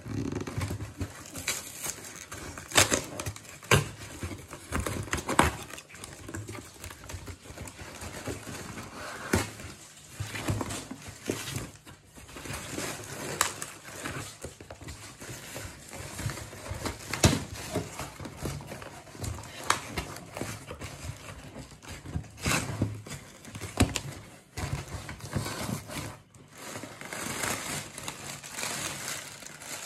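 Cardboard shipping box being torn open by hand: irregular ripping and crackling of cardboard, with rustling of packing paper being pulled out near the end.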